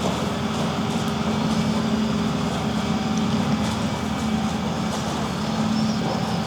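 A steady low mechanical hum, like a motor running, under an even wash of background noise, with a few faint clicks.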